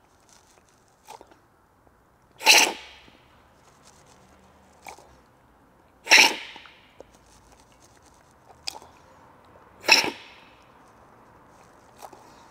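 Three loud, sharp slurps of coffee from a cupping spoon, about four seconds apart, the taster spraying the brew across his palate. Each slurp comes about a second after a faint clink of the spoon.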